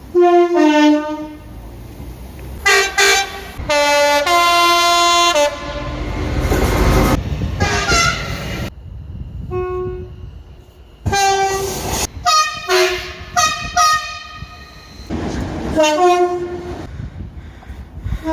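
Train horns sounding in a series of blasts, some short toots and some held longer, one for about a second and a half. The rumble of a passing train swells in the middle, and the sound cuts off abruptly about halfway before more short horn blasts follow.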